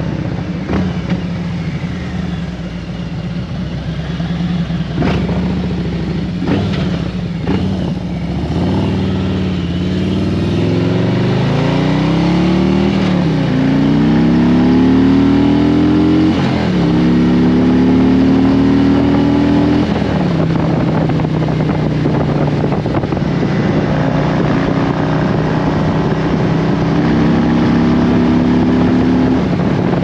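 2017 Harley-Davidson Road Glide Special's V-twin (Milwaukee-Eight 107) running at low, steady revs, then accelerating through the gears. Its pitch climbs and drops back with each of about three upshifts, then it settles into a steady cruise with wind noise.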